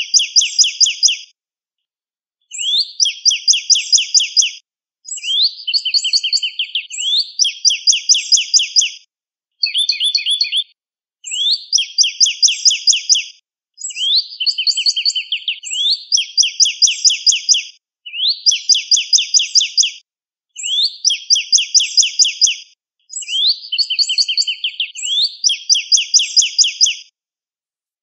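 Northern cardinal singing loudly in repeated phrases with short pauses between. Each phrase is a rising slurred note followed by a quick run of clear, down-slurred whistles.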